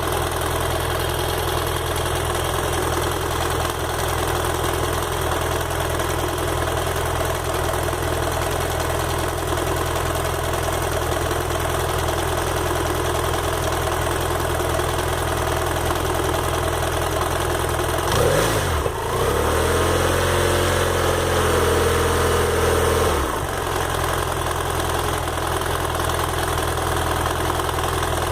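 BMW F 800 GS parallel-twin engine idling, with the light 'tec tec' ticking the owner hears when it is hot and leaning on the side stand. It is revved about eighteen seconds in, held higher for about five seconds, then drops back to idle; the ticking stops when revved. The owner believes the ticking is normal.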